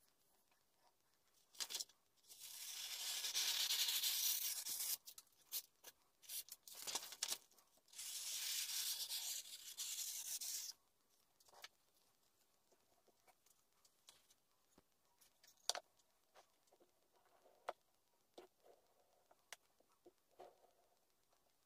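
Two long, scratchy strokes of a Japanese kitchen knife's blade, each lasting about three seconds, followed by light clicks and taps of handling.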